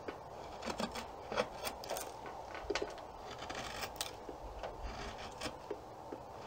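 Draw knife taking short, careful shaving cuts on an Osage orange bow stave: irregular, quiet scrapes of the blade peeling wood away around a knot.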